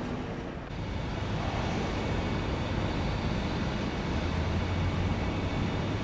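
Jet airliner engines running, a steady rumble that dips briefly under a second in and then swells and holds.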